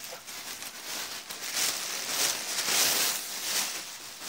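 Thin plastic bag crinkling and rustling as it is pulled off a loudspeaker driver, loudest about two to three seconds in, then dying away.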